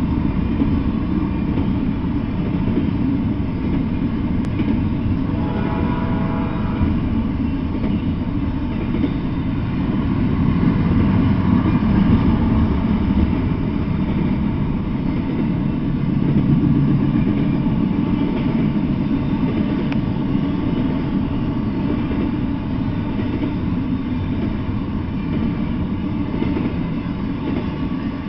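Double-stack intermodal container freight train rolling past: a steady rumble and rattle of steel wheels on rail. A brief whine rises over it about five seconds in.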